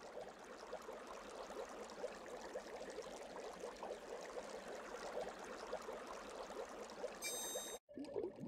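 Fast-flowing river in flood: a steady rush and babble of water. It breaks off for an instant near the end.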